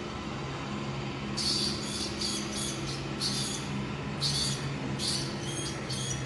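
A mouse squeaking repeatedly at a cat: a string of short, shrill squeaks in irregular bursts, starting a little over a second in, over a steady low hum.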